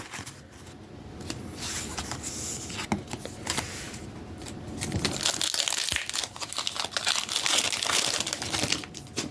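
Foil wrapper of a Pokémon card booster pack crinkling and tearing as it is opened, a dense rustle of small crackles that grows louder about halfway through.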